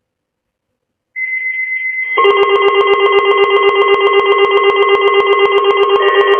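Electronic tones: about a second in, a single shrill tone with a rough, buzzy edge starts. About a second later a louder ringing mix of several steady tones takes over, with fast, evenly spaced clicks running through it.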